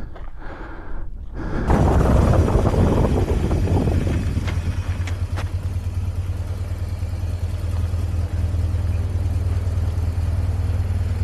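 2005 BMW R1200GS's boxer-twin engine running steadily under way on a gravel road, with wind and tyre noise over it. It starts abruptly about a second and a half in, after a quieter first moment.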